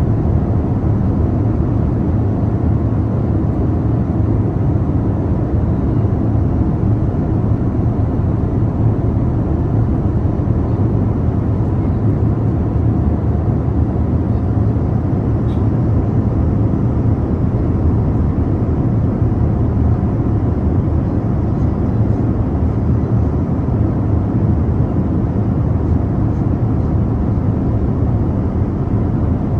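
Steady cabin noise of an airliner in flight heard from a window seat: a constant low rumble of engines and airflow with a faint steady hum on top.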